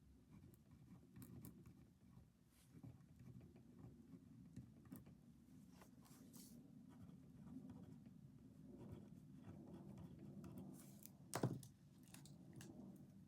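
Faint rustling and small clicks of someone working at a desk with pen and paper, with one louder knock about eleven seconds in.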